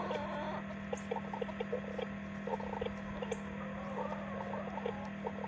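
A small animal making short, quick calls in irregular runs, over a steady low electrical hum.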